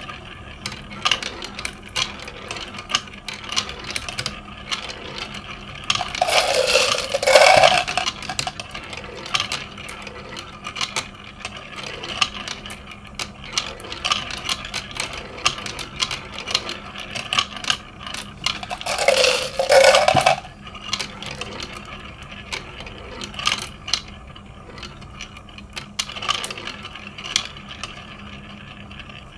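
Glass marbles rolling and clattering through a plastic marble-run toy's tubes and track pieces, a steady stream of light clicks and taps. Twice, about a quarter and about two-thirds of the way in, there is a longer, louder whirring rush as a marble spins round one of the orange spiral funnels.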